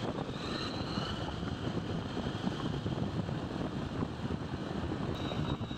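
Steady road and engine noise of a vehicle travelling along a road.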